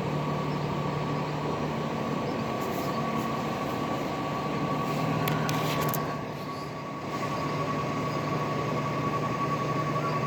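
Recycling truck's diesel engine running steadily, with a constant high-pitched tone over it and a few sharp clatters around the middle.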